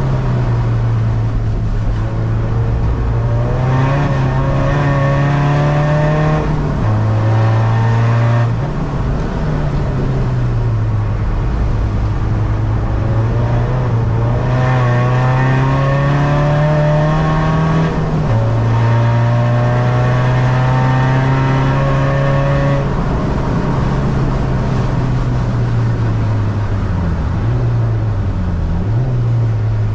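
Tuned 250 bhp diesel SEAT Ibiza engine heard from inside the cabin, pulling hard under acceleration. Its note climbs in pitch and drops sharply at upshifts about 7 and 18 seconds in. It falls off slowly between pulls, then dips and rises unevenly near the end as the driver lifts and shifts down.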